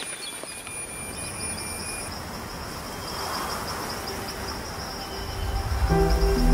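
Wet rainforest ambience: light dripping, then a steady high insect trill pulsing rapidly. Soft ambient music with low sustained tones swells in near the end.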